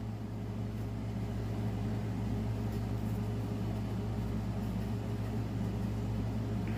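Steady low machine hum with no other clear sound.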